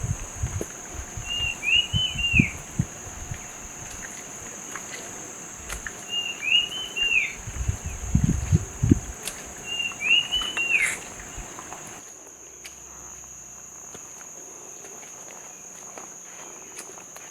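A bird repeats a short chirping phrase three times, about four seconds apart, over a steady high insect drone and the faint wash of a stream. Low thumps and rumbles come at times in the first part, and the background wash drops about twelve seconds in.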